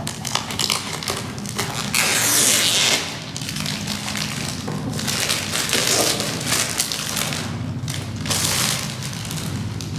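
Cardboard product box being handled and opened: irregular rustling, crinkling and scraping of packaging in several bursts, over a steady low hum.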